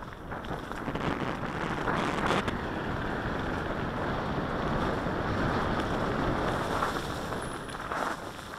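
Wind buffeting the microphone of a camera moving fast down a dirt forest trail, mixed with the rumble of riding over rough ground. There are a couple of short rattles, about two seconds in and near the end.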